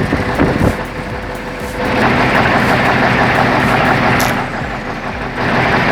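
Heavy vehicle's engine running hard, getting louder about two seconds in, as it strains to pull a stump out on a cable.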